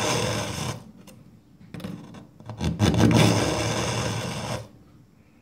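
Kitchen knife blade drawn slowly through an AnySharp pull-through sharpener's tungsten carbide edges, making a dry rasping scrape of steel on carbide. One pass ends about a second in, and a second pass of about two seconds follows in the second half.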